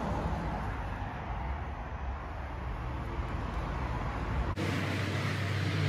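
Steady low background rumble of outdoor ambience with no clear single event. About four and a half seconds in the sound changes abruptly: the deepest rumble drops out and a brighter hiss takes over.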